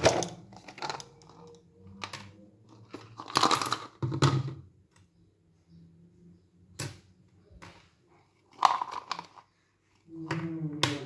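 A hollow plastic toy egg and its contents being handled: it is opened, and the plaster figurine pieces, paper insert and small plastic paint pots inside are lifted out. The sound is a series of separate plastic clicks, knocks and rustles with short quiet gaps between them, the loudest at the very start and about three and a half seconds in.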